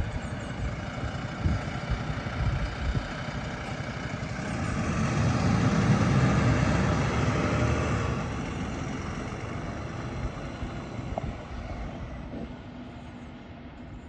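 Mercedes-Benz Citaro city bus engine pulling away from a stop. The engine note swells to its loudest about halfway through as the bus gets going, then fades steadily as it drives off.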